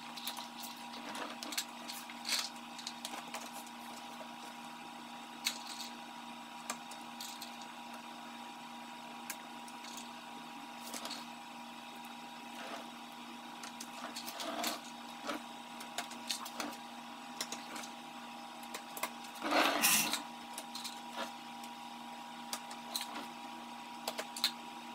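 A steady motor-like hum, with scattered light clicks and knocks as plastic car trim is handled and fitted under the bumper, and one louder scuff about 20 seconds in.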